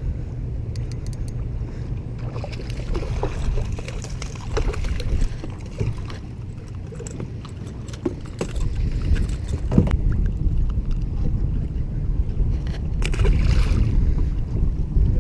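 A boat under way: a steady low rumble, heavier in the second half, with gear rattling and knocking on board.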